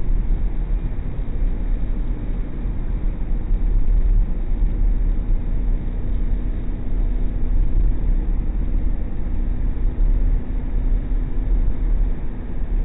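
Steady engine and road noise inside a moving car, picked up by a dashcam's microphone, dominated by a heavy low rumble with a faint engine hum.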